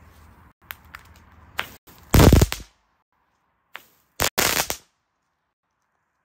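F1 crackling firework (a 'Knatter' type) going off: a few small pops, then a loud burst of crackling about two seconds in and a second, shorter burst about four and a half seconds in.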